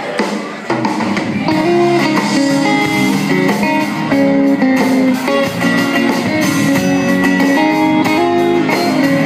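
Live band playing the instrumental intro of a country song, led by guitars with long held notes, before the singing comes in.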